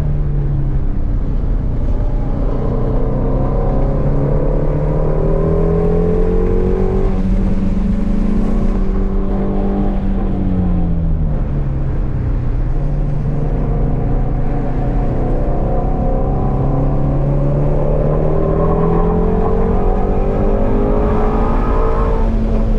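Shelby GT350's 5.2-litre flat-plane-crank V8 driven hard on a race track, heard from inside the cabin. The revs climb for several seconds, fall away about halfway through, then climb again.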